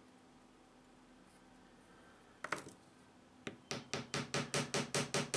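A small hammer tapping brass threaded standoffs into drilled holes in a wooden enclosure. A few knocks come about two and a half seconds in, then a steady run of light, even taps, about five a second.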